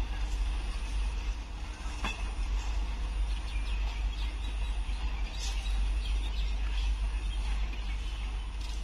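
Tank-wagon freight train rolling away along the track, a steady low rumble.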